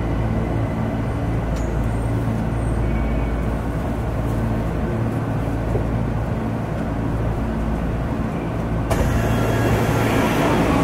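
Tokyo Metro Ginza Line subway train running past the platform screen doors, a steady low rumble with motor hum. A louder hiss comes in about nine seconds in.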